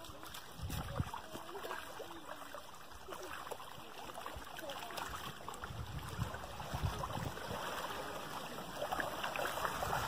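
Shallow stream water running over sand and sloshing around bare feet as people wade through it.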